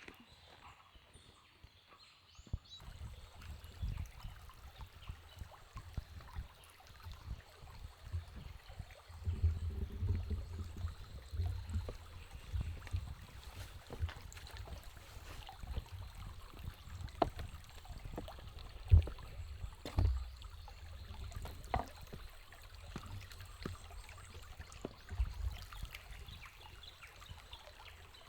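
Faint flowing stream water under irregular low thumps and knocks, the sharpest about 19 seconds in.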